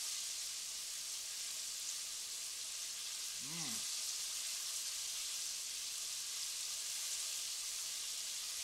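Chicken strips deep-frying in a pot of hot vegetable oil, a steady sizzling hiss. About three and a half seconds in, a short hummed "mmm" from someone eating rises and falls in pitch.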